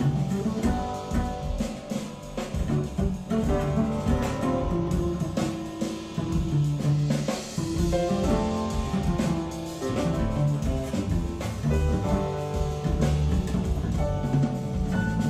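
Instrumental passage of a jazz song with drum kit and bass, played back over YG Acoustics Carmel 2 hi-fi loudspeakers.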